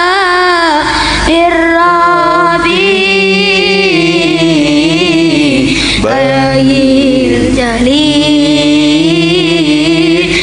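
A boy singing Islamic sholawat solo into a microphone, in long held notes that waver and bend in ornamented runs, with short breaks between phrases.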